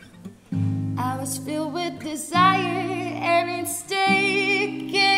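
Female voice singing long notes with vibrato over a strummed acoustic guitar. The guitar chord comes in about half a second in, and the chords change twice.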